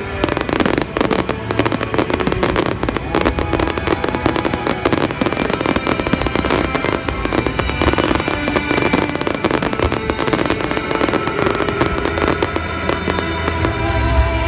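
Fireworks display: a dense, rapid barrage of bangs and crackling from many shells bursting at once, with music playing underneath that comes through more clearly near the end.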